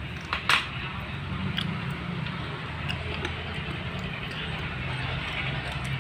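Scattered light clicks and taps of chopsticks against plastic bowls and hard corn snacks, with a sharper click about half a second in, over a steady low hum.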